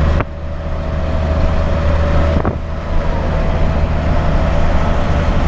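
Inside the cab of a MAN truck on the move: the diesel engine's steady low drone mixed with road noise, with a faint steady whine running through it.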